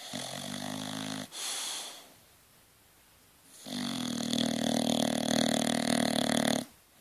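Bulldog snoring in its sleep. A snore of about a second is followed by a short breath; after a pause comes a louder snore of about three seconds.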